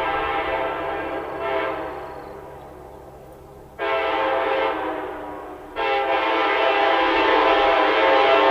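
Multi-chime locomotive air horn sounding a chord. A held note tapers off, then comes a short blast about four seconds in, then a long, loud blast from about six seconds in.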